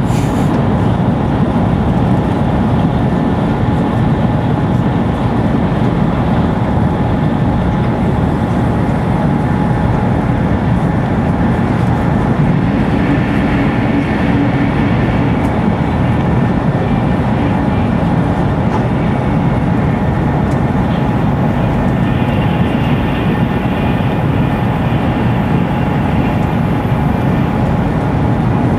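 Shinkansen bullet train running at speed, heard from inside the passenger car: a loud, steady low rumble, with a faint high whine that comes and goes in the middle and near the end.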